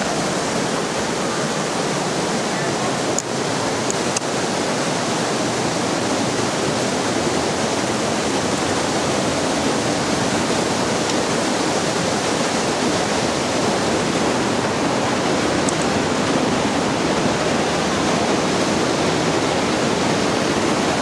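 Waterfall rushing in a loud, steady, even roar of falling water, with two brief clicks about three and four seconds in.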